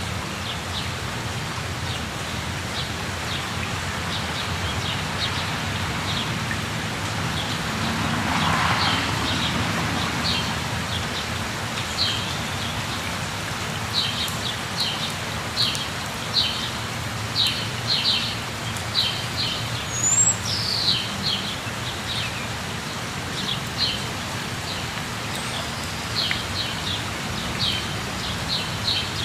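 Steady rush of a waterfall with birds calling over it: many short high chirps in quick series, thickest in the second half, and a brief rising whistle followed by a falling call about two-thirds of the way through.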